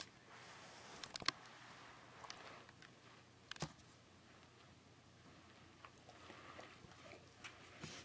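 Near silence in a small room, broken by a few faint clicks and taps, the clearest about a second in and again past three and a half seconds.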